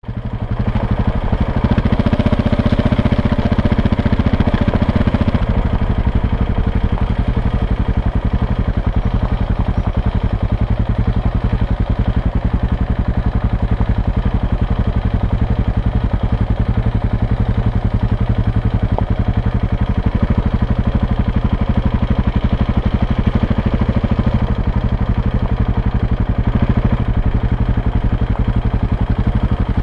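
Motorcycle engine running steadily at low speed, a little louder in the first few seconds.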